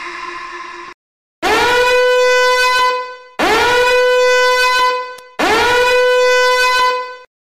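Meme alarm sound effect: three long, buzzy horn-like blasts, each swooping up in pitch and then holding steady, about two seconds apiece with short gaps between. Before them, the tail of a fading sound dies out about a second in.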